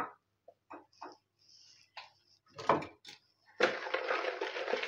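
A few small scattered knocks, then, about three and a half seconds in, a hand whisk starts beating granulated sugar into oil in a plastic bowl: a steady, gritty scraping and swishing.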